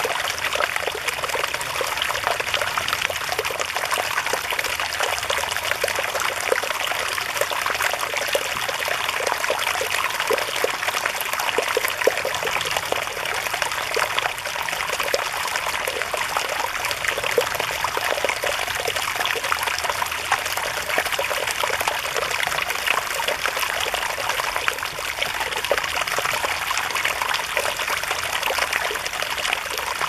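Mountain valley stream running steadily, a dense, unbroken trickling and splashing of water.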